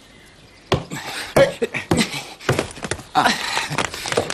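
A man panting hard with short breathy vocal sounds, over a quick, irregular run of sharp knocks and clacks that starts about a second in.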